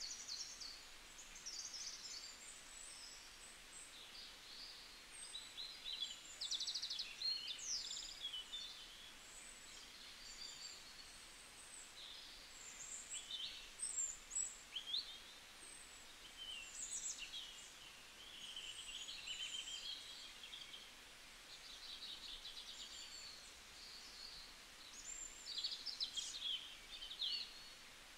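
Birds singing: many short high chirps, quick trills and curving whistles, one after another, over a faint hiss.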